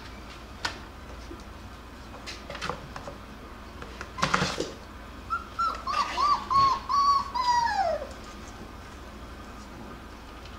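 Jackabee (beagle–Jack Russell cross) puppy whining: a string of short, high cries about five seconds in, ending in a longer cry that falls in pitch. Shortly before, a brief scuffling noise, with a few light knocks earlier.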